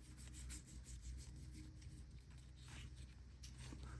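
Faint rubbing and sliding of trading cards handled one by one while flipping through a freshly opened pack, over a low steady hum.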